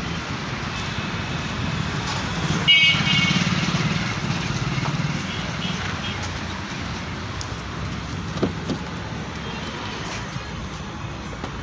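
Motor vehicle engine rumble in a street, swelling from about three to five seconds in, with a short high-pitched tone near the start of the swell.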